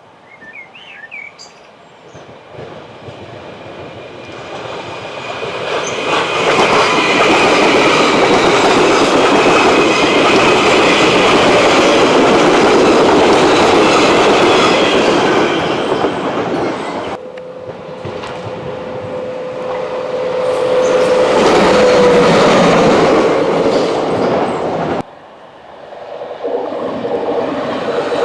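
Trains passing on the railway line: a loud rush of train noise builds over the first few seconds and holds, then cuts off abruptly twice into further passing trains, the middle one with a steady whine running through it.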